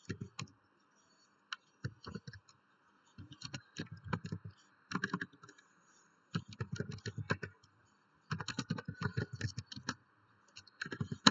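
Computer keyboard being typed on, the key clicks coming in quick runs with short pauses between them, with one louder click near the end.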